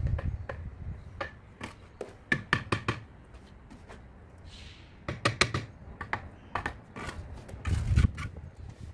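Trowel and bricklayer's hammer tapping and scraping on hollow terracotta bricks as they are set in mortar: a run of sharp clicks and knocks in small clusters, the loudest knocks near the end as the top brick is tapped down.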